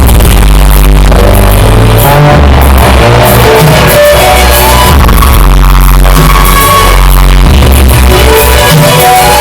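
Loud electronic music with a heavy bass line and a melody over it, played through a loudspeaker.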